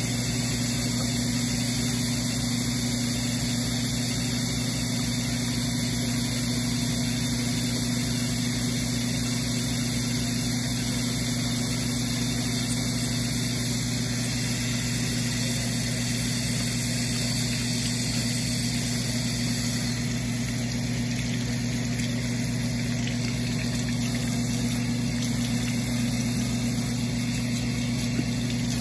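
A steady mechanical hum, even and unchanging throughout, like a motor or appliance running.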